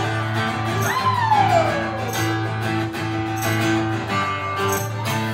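Guitar playing an instrumental break between verses of a country song, with one long note gliding downward about a second in.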